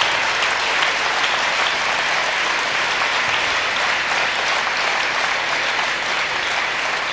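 Large seated audience applauding steadily in a hall, the clapping easing off slightly near the end.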